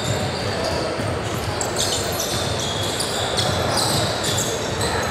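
Basketball game on a gym floor: the ball bouncing as it is dribbled, with many short high-pitched squeaks over a steady bed of court noise.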